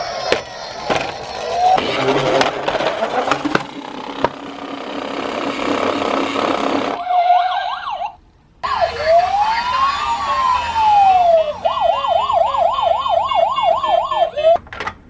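Police car siren sound: a slow rising-and-falling wail that switches to a fast yelp about two-thirds of the way through. For roughly the first half, a clattering noise with sharp clicks runs under it, and everything cuts out briefly just past the middle.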